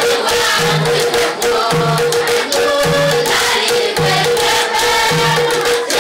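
A youth choir singing together, with hand-clapping and a low beat about once a second.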